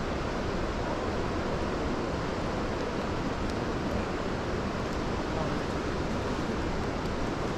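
Steady rushing noise of fast-flowing river water, unchanging throughout.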